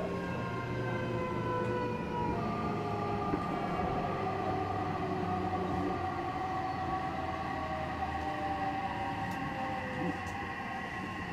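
Odakyu 3000 series electric train running, its totally enclosed traction motors and Mitsubishi IGBT VVVF inverter whining in several tones that slowly fall in pitch as the train slows, over a low rumble.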